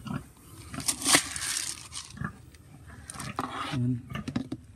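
Dry feed pellets rustling and rattling in a plastic scoop and bucket as they are scooped and handled. There are two bouts of rustling, the louder about a second in and another about three seconds in.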